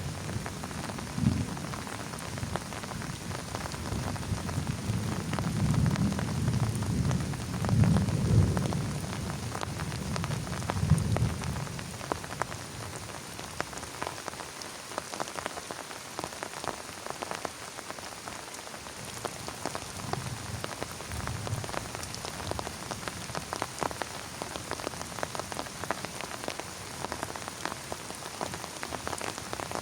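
Heavy rain pattering steadily on a plastic tarp, dense with individual drop hits. Low rumbles of thunder swell through the first part and fade, with a fainter rumble later on.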